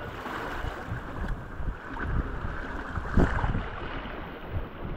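Wind buffeting the microphone over water rushing and splashing along a small sailboat's hull under way, with a louder surge a little past three seconds in.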